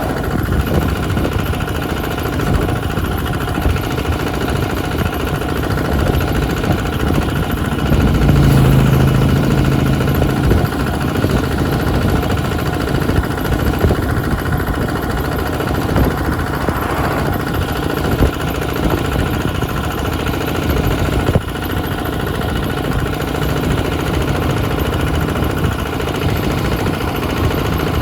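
A vehicle engine running steadily, with a louder, deeper hum from about eight to ten seconds in.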